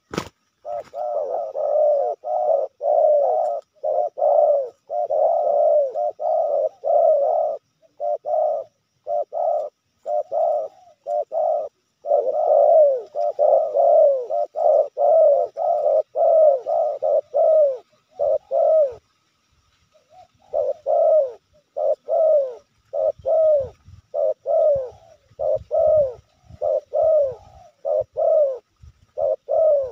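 Spotted doves cooing over and over, one coo following another with hardly a pause, with one short break about two-thirds of the way through. A sharp click sounds right at the start.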